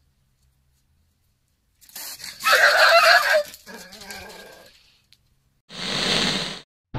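A dog barking in a sudden scuffle with a cat: a loud burst about two seconds in that tails off over the next couple of seconds. Near the end, a short swelling whoosh.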